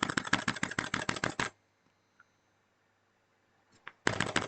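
Red linear mechanical keyboard switches being pressed hard and bottomed out in rapid succession, a fast clatter of key clacks: the noise red switches make when pressed all the way down, as a first-time user who can't feel the actuation point does. The clatter stops about a second and a half in and starts again near the end.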